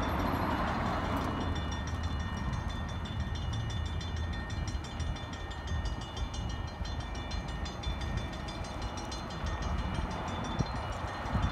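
Distant rumble of a Norfolk Southern freight train, steady, with a faint high ringing of several steady tones above it.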